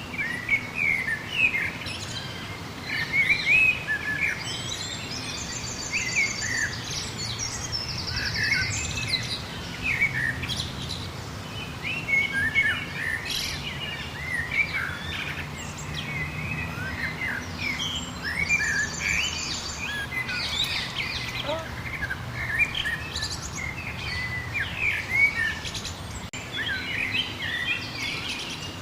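Chorus of many small songbirds chirping and calling over one another, with a few short, fast, high trills about 5, 8 and 19 seconds in. A faint steady low hum runs underneath.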